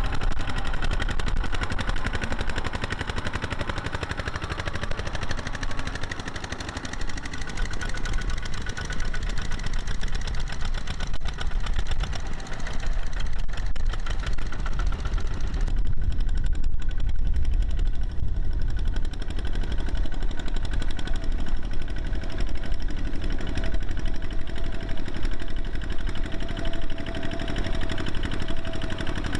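Single-cylinder Kubota diesel engines of two-wheel walking tractors running under load, a rapid, even chugging of exhaust beats, as they haul trailers through deep paddy mud and water. The sound changes in tone a little past halfway.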